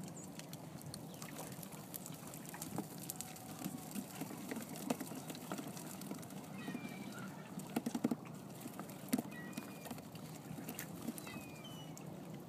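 Wet cast net being hauled up by hand, water dripping and pattering off the mesh with scattered small clicks. A few short high chirps come through faintly.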